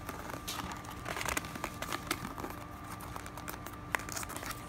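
Plastic shrink wrap on a sealed trading-card hobby box crinkling and tearing in small, scattered crackles as it is picked at and peeled open with fingers and fingernails.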